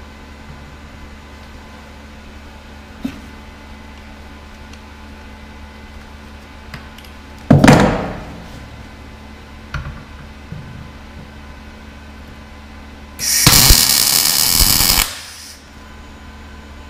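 Welding arc from a Sherman DigiMIG 200 Dual Puls welder striking on a workpiece: a short burst about halfway through that fades within a second, then a steady, hissing burst of about two seconds near the end, the sound of short welds being laid.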